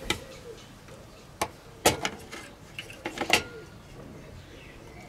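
A series of sharp clicks and knocks from the parts of a compact PC case being handled and fitted. The loudest comes about two seconds in, with a cluster of quicker knocks a little over a second later.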